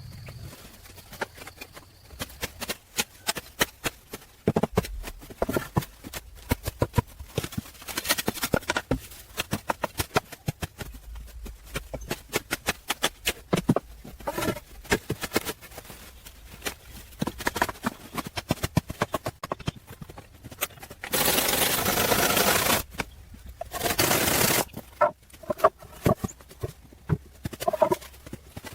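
Many short sharp knocks and taps in an irregular run, like hand-tool work. Two brief bursts of rushing noise come about three-quarters of the way through.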